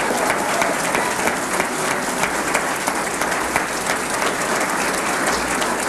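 Large crowd applauding steadily, a dense wash of many hands clapping.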